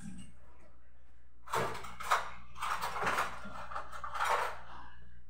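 Rummaging sounds: a few short scrapes and rustles from about a second and a half in until near the end, over a steady low hum.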